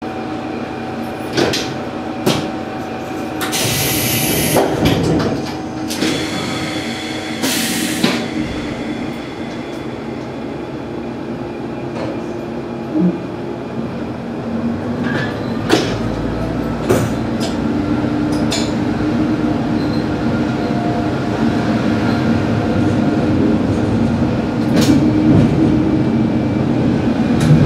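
Diesel railcar idling at a station, with two loud hisses of air a few seconds apart, then its engine rising as the train pulls away, getting louder, with a few sharp clicks of the wheels over the rails.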